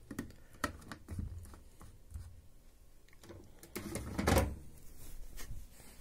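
Light clicks and knocks of handling: a plastic fabric-softener bottle and the plastic detergent drawer of a washing machine being moved, with a louder scraping knock about four seconds in.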